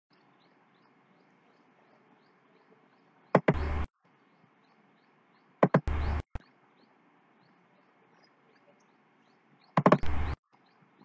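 Three short, loud knocking bursts, each a sharp click followed by about half a second of dull thud, over faint hiss with light, regular ticking.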